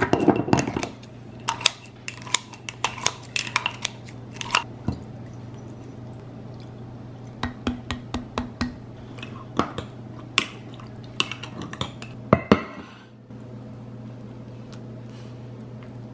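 Kitchen scissors clicking as they snip kimchi inside a glass mason jar, followed by scattered runs of sharp clinks and taps of utensils on glass and a stainless steel bowl.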